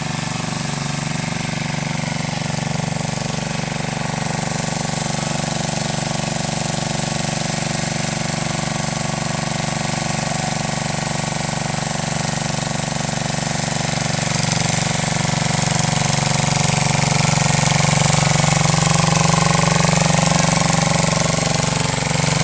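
An engine running steadily, growing somewhat louder about two-thirds of the way through.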